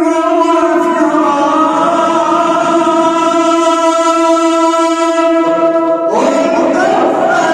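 A male reciter's voice holding one long melodic note in chanted Quran recitation. The pitch stays steady for about six seconds, then slides upward near the end into the next phrase.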